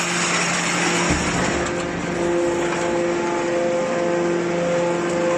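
Hydraulic scrap metal baler running: a steady machine hum of several held tones over a noisy whir from its electric motor and hydraulic pump, with a low thump about a second in.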